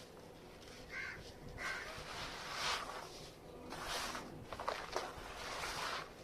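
Lumps of dried red sand-clay being crushed and crumbled, several separate crunching, crackling crushes with sharp cracks near the end. A bird calls briefly twice about a second in.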